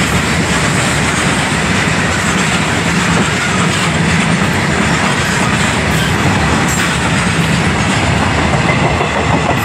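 Freight train wagons rolling past close by: a loud, steady rumble of steel wheels on the rails that runs on without a break.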